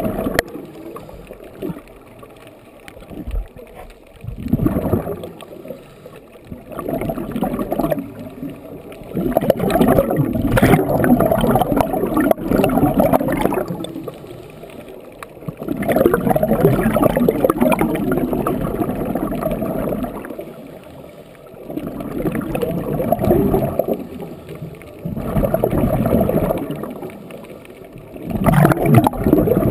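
Scuba diver breathing through a regulator underwater: loud bursts of exhaled bubbles every few seconds, some lasting several seconds, with quieter gaps between breaths.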